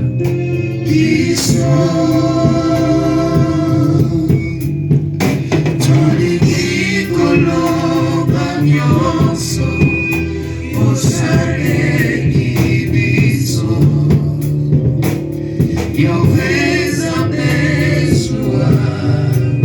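Gospel song: voices singing over instrumental accompaniment with a steady bass line.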